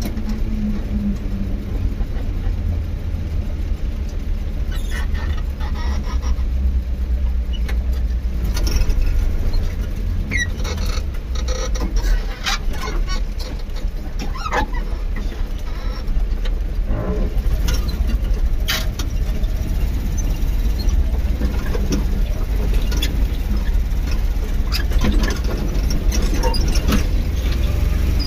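Steady low rumble of a moving vehicle heard from on board as it drives over a rough, unpaved road surface, with scattered short rattles and knocks.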